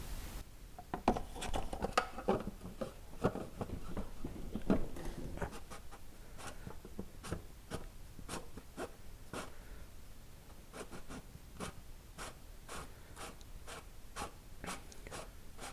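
Irregular light clicks and scrapes of plastic parts being handled: the plastic oil filter housing being fitted and hand-threaded back into place under the car.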